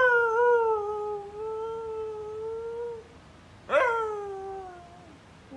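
A dog howling: a long, steady howl that ends about three seconds in, then a second, shorter howl that falls in pitch, with a third just starting at the very end.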